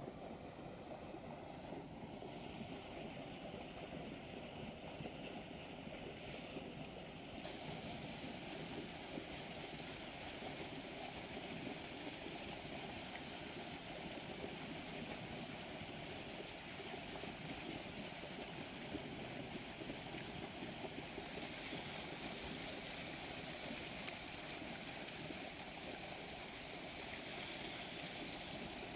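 Fast-flowing water rushing steadily down a concrete-lined canal, churning white over the outflow.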